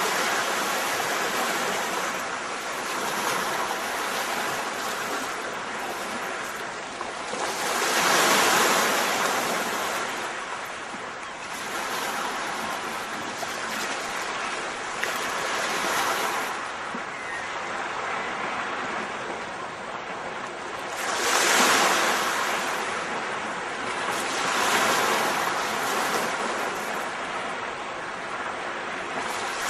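Rushing noise of surf, swelling and falling back every few seconds like waves breaking.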